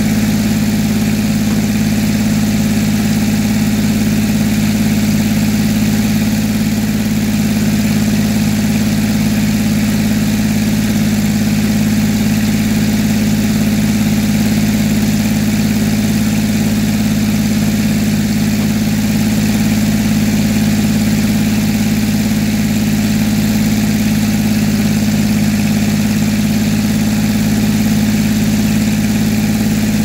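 Sawmill's power-unit engine running steadily at a constant speed, an even drone that does not change.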